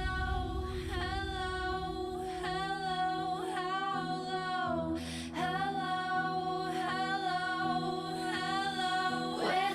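Music: a solo voice singing long, wavering held notes without words over a low steady drone, with short breaks between phrases.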